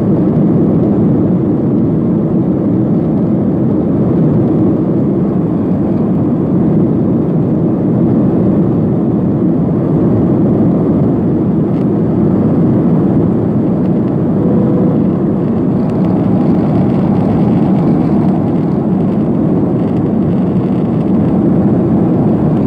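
Steady roar inside the cabin of a Boeing 737-500 in flight, from its CFM56 turbofan engines and the air rushing past the fuselage.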